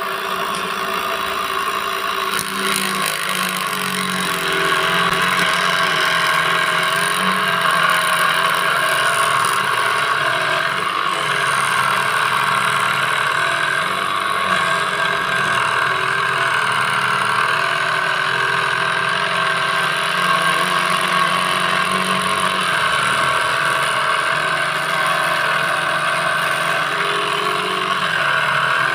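Small homemade DC-motor saw running steadily while its thin blade cuts letter shapes out of a PVC plate. It gets a little louder about five seconds in and then holds steady.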